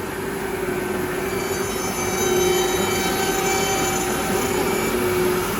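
An automatic-tool-change CNC wood router running: a steady hum with a cluster of high whining tones that come in about a second in and fade near the end, a little louder from about two seconds in.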